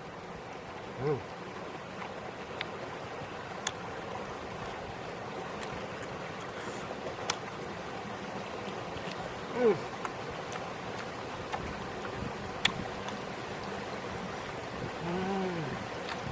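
A steady outdoor rushing hiss, with scattered small clicks and smacks of hand-eating. A few short hummed sounds come from the eater, about a second in, near the middle and near the end.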